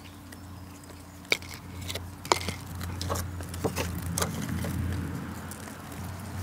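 Plastic nursery pots and potting soil being handled while planting a container: two sharp clicks, then a run of smaller clicks and rustling, over a steady low hum.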